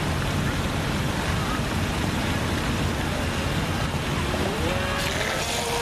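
Steady engine running under a wash of wind and water noise. About four seconds in, a whine rises in pitch and then holds steady.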